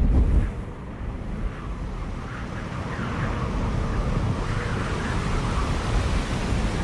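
Low, dense rumble with a brief swell at the start, then growing slowly louder.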